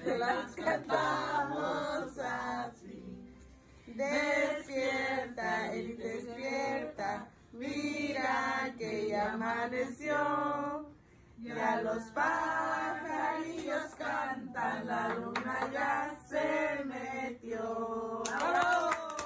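Several voices singing a song together in phrases with short breaks, and hand clapping begins near the end.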